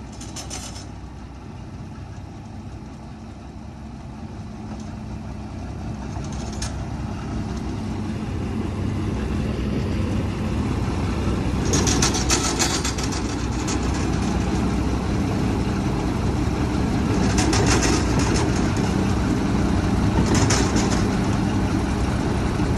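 Diesel tractor engine running steadily and growing louder as the tractor draws closer, with a few short noisy bursts about halfway through and near the end.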